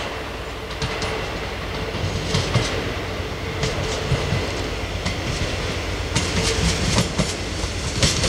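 Diesel railbus approaching, its engine humming under a faint steady whine, with sharp clacks from the wheels crossing rail joints and points, growing slightly louder.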